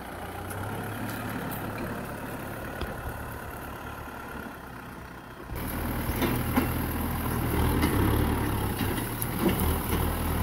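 Kubota M6040SU tractor's diesel engine running steadily as it pushes brush and soil with its front blade. The sound jumps louder about five and a half seconds in, with a few sharp knocks over the engine.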